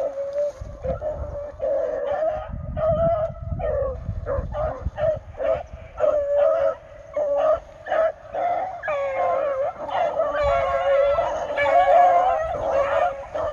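Hunting hounds baying and yelping, short broken calls at first, then several voices overlapping in a continuous chorus in the second half. Typical of a pack running a rabbit's track.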